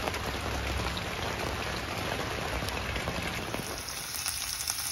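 Steady rain falling, then about three and a half seconds in it gives way to the crackling sizzle of sliced hot dogs, diced red onion and green peppers frying in a pan.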